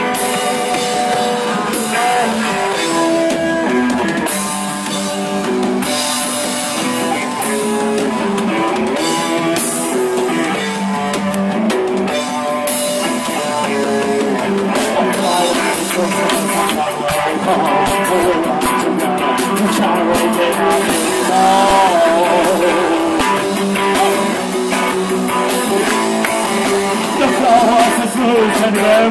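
Live rock band playing: electric guitars and drum kit, with a voice singing in places, loudest around the last few seconds. The sound is thin, with little bass.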